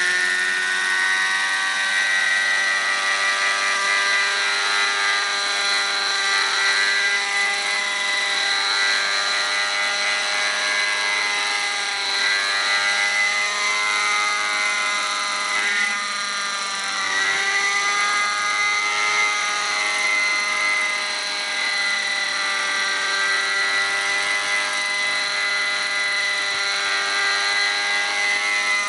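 Raptor 50 Titan RC helicopter's nitro glow engine and main rotor running at flight speed. The pitch rises briefly at the start as it spools up, wavers up and down midway through, then holds steady.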